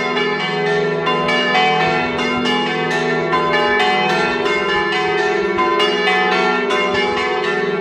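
Swinging church bells (Italian 'a slancio' bells, probably cast by Paolo Capanni) ringing a full peal: overlapping clangs several times a second over a steady hum.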